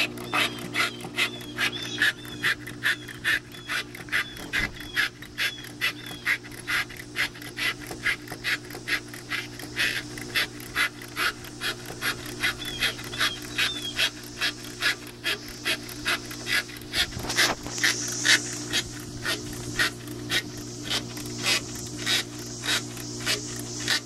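Outdoor AC condensing unit running with a steady low hum while the system is pumped down. Over it comes a loud, even, rhythmic pulse of noise about three times a second.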